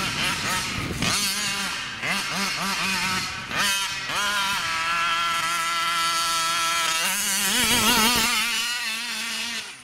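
Two-stroke petrol engine of a large-scale RC car revving up and down in quick throttle blips. It is then held at a steady high rev for about two seconds, then wavers on and off the throttle before dropping away near the end.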